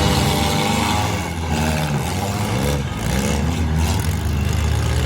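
Four-cylinder demolition derby cars' engines running and revving, their pitch rising and falling, with several engines heard at once.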